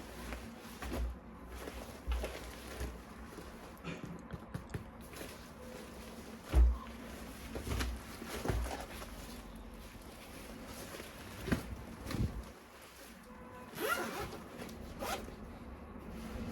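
Plastic toy parts and packaging being handled: scattered clicks, knocks and short raspy rubs, with one louder thump about six and a half seconds in.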